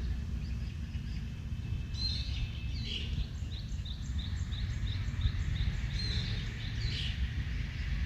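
Birds chirping: a run of short, repeated chirps at about three a second, with a few louder calls among them, over a steady low outdoor rumble.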